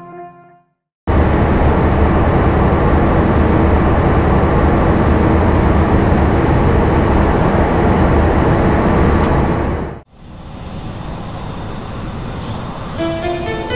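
Steady loud rush of air and engines on an airliner flight deck in flight, with a low hum underneath, starting abruptly about a second in and cutting off about ten seconds in. A quieter cockpit rush follows, with a few short tones near the end.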